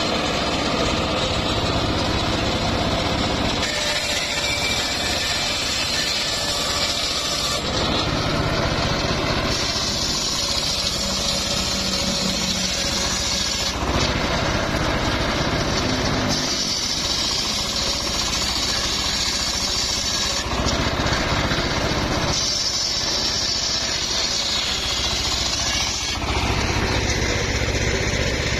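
Homemade circular saw bench running under power, its large blade ripping mahogany planks. About four cuts of a few seconds each add a hissing rasp over the machine's steady running, which drops back between cuts.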